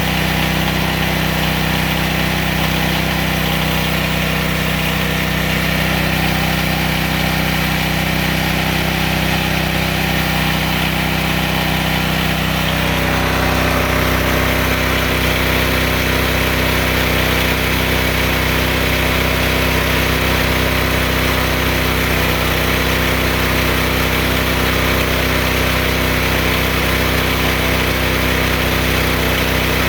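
A homemade bandsaw sawmill's 14 hp 420cc gas engine running steadily. About halfway through, its note shifts and a higher hiss grows stronger.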